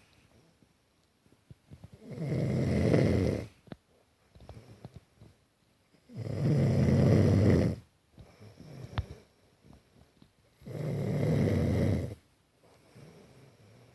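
Snoring during sleep: three long, loud snores about four seconds apart, with quiet pauses and a few faint clicks between them.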